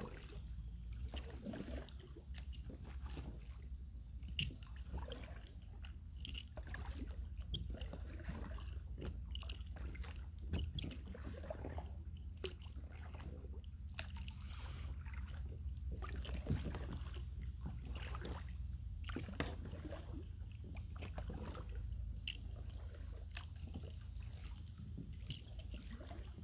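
Kayak paddle strokes in calm river water: irregular small splashes, drips and light knocks over a steady low rumble.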